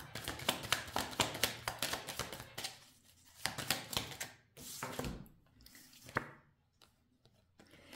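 Tarot cards being handled on a table: a quick run of small clicks and taps for the first two and a half seconds or so, then scattered single taps.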